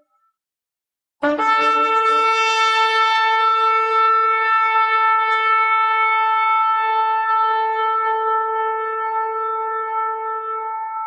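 Shofar sounding one long, steady blast that starts suddenly about a second in, with a brief lower note at the attack before it settles on a single held pitch.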